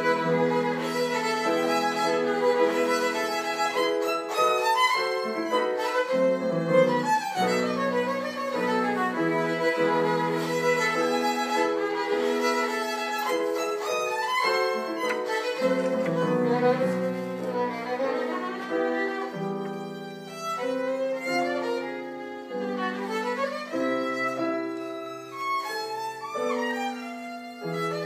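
Violin playing sustained bowed melody with piano accompaniment, the two entering together with a sudden loud start.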